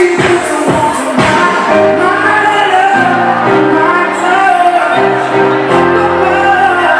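Disco song with singing, a steady beat in the first second or so giving way to long held chords and voices.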